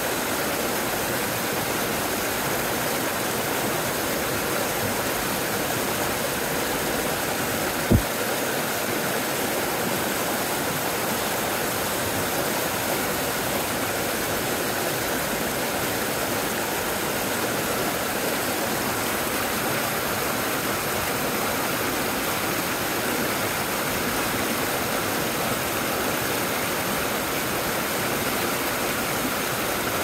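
Mountain brook spilling over a small rocky cascade: a steady rush of water. A single brief low thump about eight seconds in.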